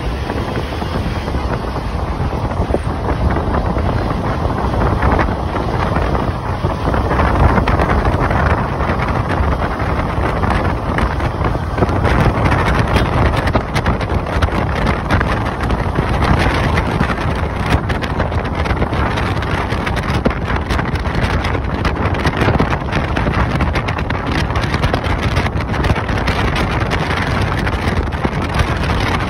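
Steady rush of wind on the microphone with road noise from a moving car.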